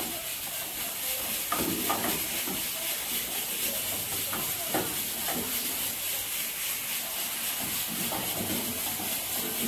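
Collard greens wilting in hot oil with garlic in a frying pan, a steady sizzle, with a wooden spoon now and then scraping and knocking against the pan as they are stirred.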